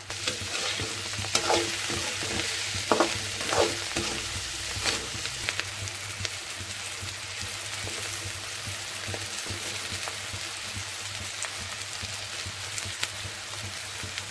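Chopped bitter gourd, onion and tomato sizzling in oil in a pan. A slotted steel spatula stirs them, scraping and clinking against the pan a few times in the first five seconds, then a steady sizzle.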